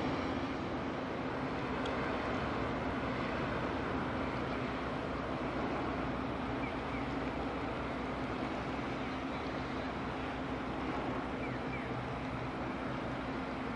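A car ferry's diesel engines running: a steady low drone with a steady hum, fading slightly.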